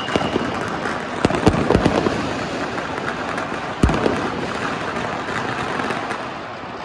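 Fireworks and firecrackers going off in a dense, continuous crackle, with a cluster of loud bangs between about one and two seconds in and a single sharp bang near four seconds. The crackle eases off toward the end.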